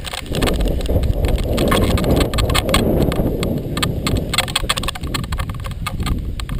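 Wind buffeting the microphone of a camera on a bungee jumper hanging upside down on the cord, a dense low rumble with many irregular sharp clicks and rattles over it.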